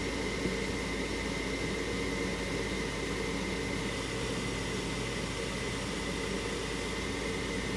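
ICP gas furnace running its fan steadily through an ignition attempt, an even whir with a faint high whine; the pilot does not light, so the burner never fires.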